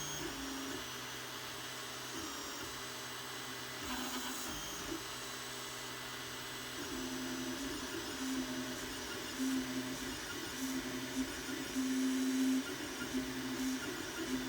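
3D printer printing, its stepper motors whining in short tones that change pitch as the print head moves, over a steady low hum. The tones grow louder and more frequent about halfway through.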